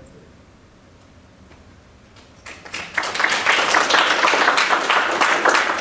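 Audience applauding: many hands clapping, starting about two and a half seconds in and quickly growing loud.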